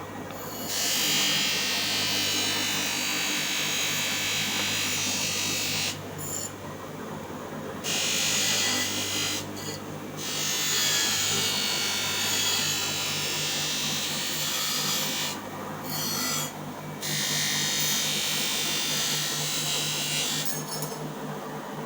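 An electric motor-driven tool working a brass piece: a steady motor hum underneath, with several long stretches of high, hissy grinding as the tool bites the metal, breaking off briefly between them.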